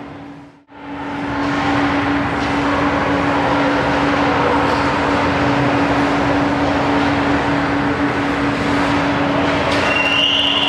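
Ice rink ambience: a steady wash of noise with a constant low hum running under it. The sound drops out briefly just under a second in, then returns louder and stays steady.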